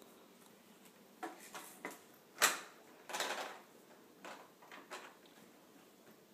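Hard plastic clicks and knocks from a baby's hands turning and slapping the spinning roller of a toy activity table, several separate clicks with the loudest about two and a half seconds in. The table's own electronic music is not playing.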